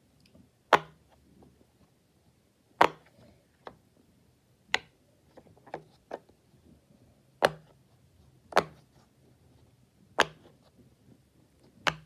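Bubbles of a silicone pop-it fidget toy pressed one at a time by a finger, each giving a sharp pop; seven loud pops come at uneven gaps of one to three seconds, with a few softer pops between.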